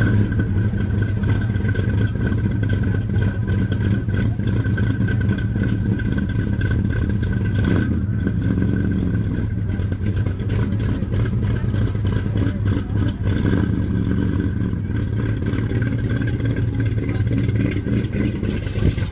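Plymouth Barracuda's V8 exhaust running steadily with a low, even rumble, with a thin steady high whine above it.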